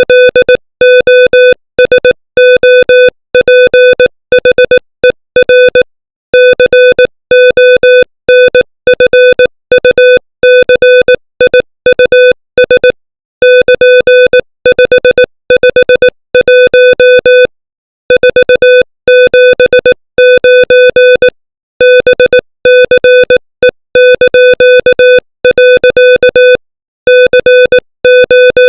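Morse code sent as an electronic beep at one steady pitch, keyed on and off in short and long marks at 18 words per minute, with slightly longer pauses between words.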